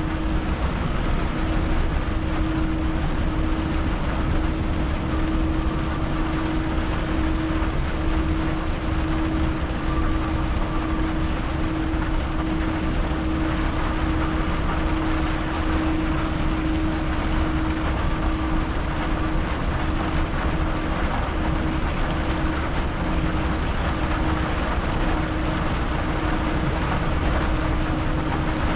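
Inside the cab of a Renault T truck driving on a wet highway in heavy rain: the engine and road make a steady low drone with a constant hum, under an even hiss of rain and tyre spray.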